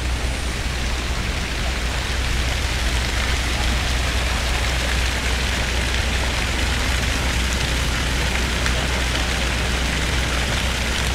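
Steady city street ambience: a rushing, rain-like hiss over a low traffic rumble, the hiss growing a little louder about two seconds in.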